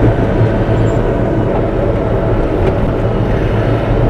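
Bobcat E42 mini excavator's diesel engine running steadily with a low, even hum.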